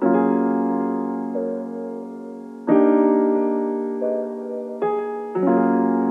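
Background piano music: slow, sustained chords struck every couple of seconds and left to ring out.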